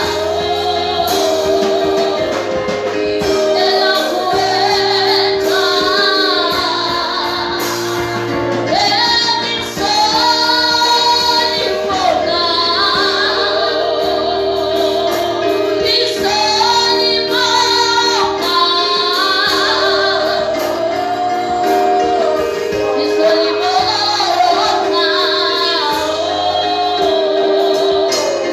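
Gospel music: female voices singing a melody over long held instrumental notes.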